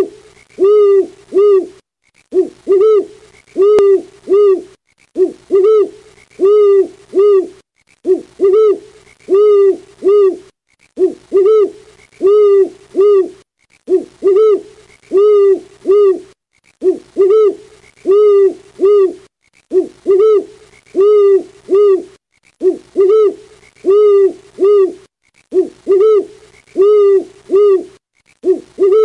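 An owl hooting in quick runs of about five or six notes, the same phrase repeating about every three seconds.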